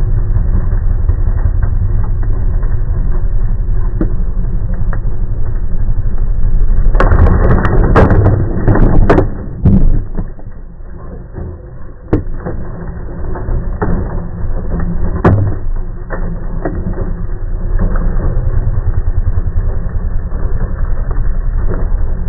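Slowed-down walk-behind lawn mower engine running with a deep, steady hum, with a burst of clattering knocks about seven to nine seconds in and a couple of single knocks later, as the mower's blade strikes and chops the turkey carcass.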